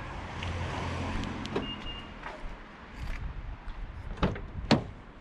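A Nissan Note being unlocked with its smart key: a small electric motor whirs for about two seconds, with a brief high beep near its end. Then the door handle is pulled and the latch gives two sharp clicks, the second louder.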